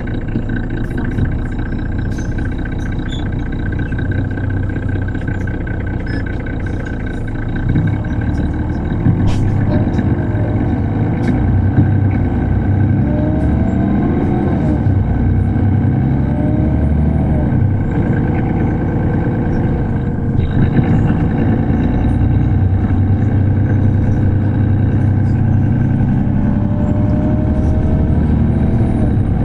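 Interior sound of a 2005 Mercedes-Benz O530 Citaro city bus under way, its inline-six OM906hLA diesel running steadily. About eight seconds in it gets louder, and the engine note rises and falls several times as the bus accelerates through the gears of its ZF automatic gearbox.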